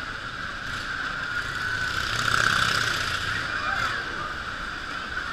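Motorcycle engine running as the bike circles the vertical wooden wall of a wall of death, swelling to its loudest about halfway through as it passes by.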